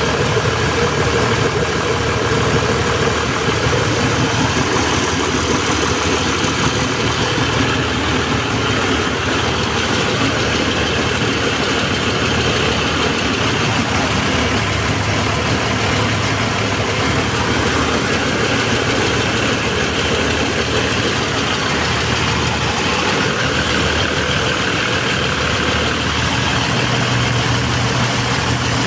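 Freshly rebuilt Toyota Land Cruiser diesel engine idling steadily.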